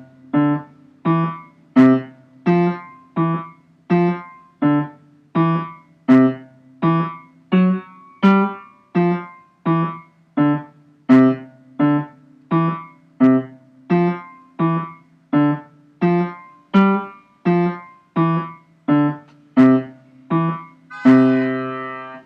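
Piano playing the low secondo part of a duet: steady, evenly spaced chords in the bass and middle range, about three every two seconds. Near the end a final chord is held and rings out as it fades.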